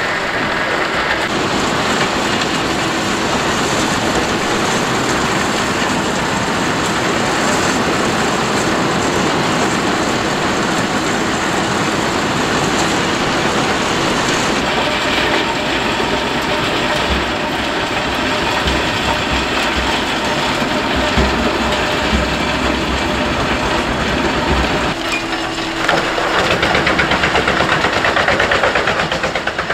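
Jenz HEM 593 Cobra truck-mounted wood chipper running under load, chipping logs and branches and blowing the chips through its discharge spout into a trailer. A loud, continuous din whose character changes abruptly about halfway through and again near the end, where it grows a little louder.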